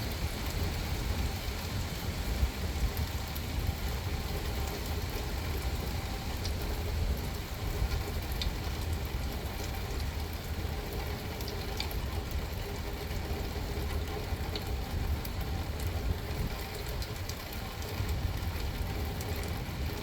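Steady rain falling on a car, with scattered drops ticking over a low steady rumble.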